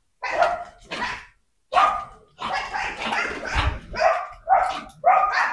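A group of pet dogs barking and yapping in short barks, a few at first and then one after another almost without pause from about two and a half seconds in.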